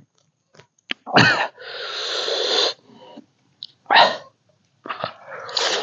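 A person sneezing, a sharp burst about a second in followed by a long hissing breath, with more short bursts near the middle and end. It is a reaction to the heat of a curry made fiery with king chili.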